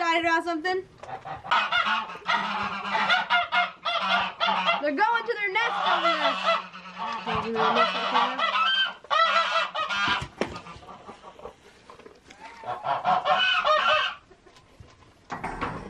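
Domestic goose honking over and over in harsh, strung-together calls, going quiet for a couple of seconds before a last run of honks near the end.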